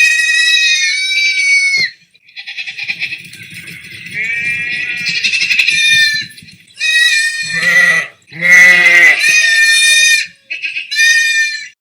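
Sheep bleating, a series of about five high, wavering bleats one after another, with short gaps between them.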